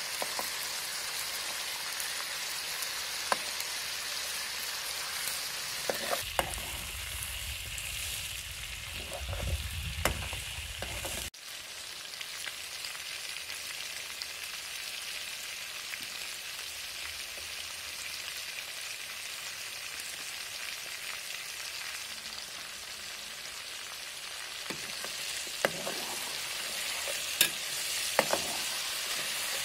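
Chicken pieces sizzling as they fry in hot oil in an aluminium pot: a steady hiss, with occasional sharp clinks as the metal ladle stirs and touches the pot. A low rumble joins in for a few seconds near the middle.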